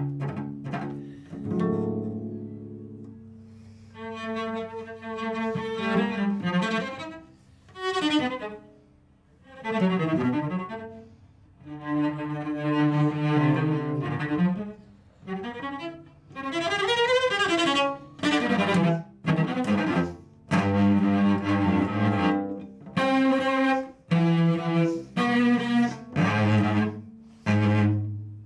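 Solo cello played with the bow: held notes that swell and fade, several sweeping slides up and down in pitch, and a run of short, separate strokes in the last few seconds.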